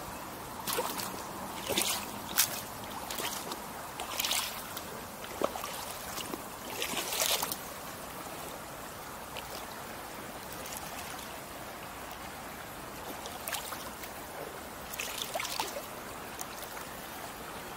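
Shallow river running over a gravel bed, a steady rush of water. A few short scrunches of boots on the wet gravel come in the first half and again near the end.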